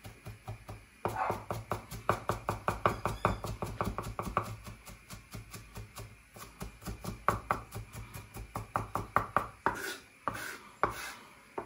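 Chef's knife chopping finely diced shallots on a wooden chopping board: a fast, even run of sharp knocks, about five a second, with a short pause midway and a couple of longer strokes near the end.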